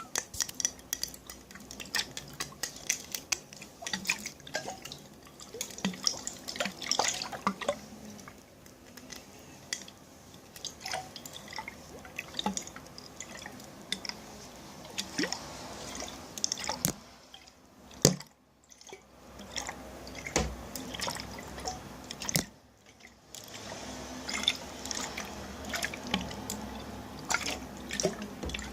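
Close-up water sounds from containers: many quick drips, splashes and small liquid clicks in an irregular patter, broken by two short silent gaps in the second half, with one sharper click between them.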